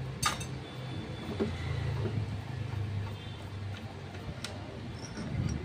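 A few light metallic clicks as a loosened nut is spun off by hand and the clutch drum of a scooter's belt drive is handled, over a low steady hum that swells in the middle.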